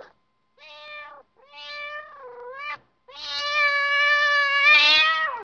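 A cat meowing three times: two shorter meows, then a long, louder meow that falls in pitch at its end.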